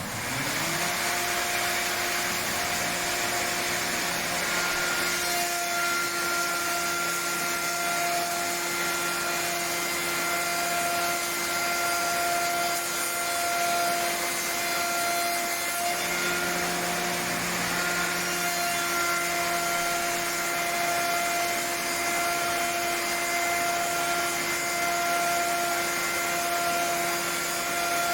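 High-speed spindle of a SAOMAD Woodpecker Just 3500 CNC woodworking machining centre spinning up within the first second and then running at a steady high whine, over a steady rushing noise of machinery.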